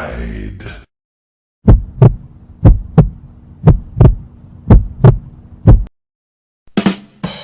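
Heartbeat sound effect: paired lub-dub thumps, about one pair a second, over a faint steady low hum. It is preceded by the end of a short voice clip saying "Denied", and another effect begins near the end.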